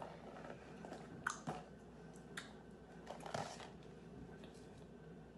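Faint handling sounds: a clear plastic tub being moved and set on a table, and a folded paper slip being picked out and unfolded, heard as a few soft clicks and rustles.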